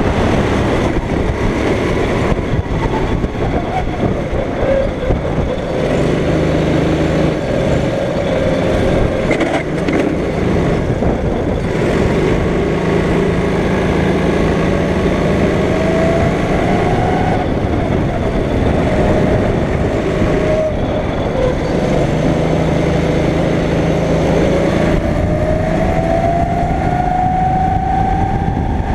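Go-kart engine running at racing speed, its pitch dropping and climbing again and again as it slows for corners and accelerates out, with a long climb near the end.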